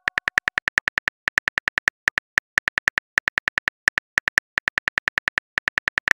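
Phone keyboard typing clicks, a quick even run of about seven a second with a few short pauses, as a text message is typed out.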